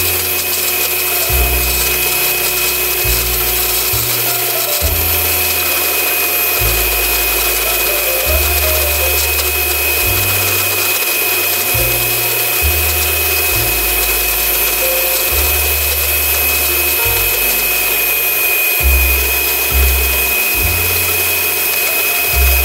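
Electric stand mixer running steadily, a motor whine over a whirring hiss as its beater churns wet banana bread batter; it cuts off at the very end.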